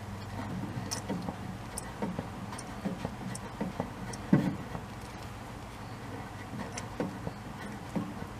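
A car running with a steady low hum, over which come irregular ticks and knocks, the loudest about four seconds in; the car's transmission makes an abnormal noise.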